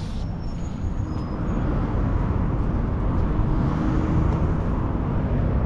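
Road traffic going by: a steady rumble of car engines and tyres that grows gradually louder.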